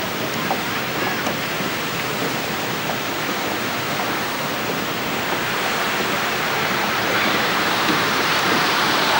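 Steady rushing of flowing river water, growing louder and brighter over the last couple of seconds.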